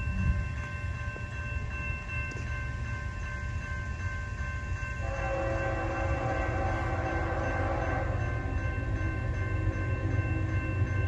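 CSX freight train running with a steady low rumble, under several steady high whining tones. A locomotive horn comes in about halfway through.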